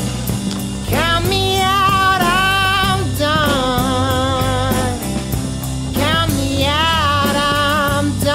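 Rock music with a singing voice over guitar and a steady drum beat; sung phrases scoop up and enter about a second in and again around six seconds.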